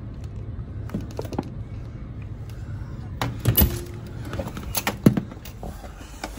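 Cabin door being unlocked and opened: a few light clicks from the lock, then louder clacks and knocks of the handle and latch as the door swings open, over a steady low hum.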